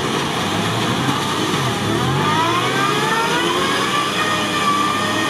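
Engine of a lifted off-road 4x4 revving hard as it powers through a mud pit, its pitch climbing from about two seconds in and holding high near the end.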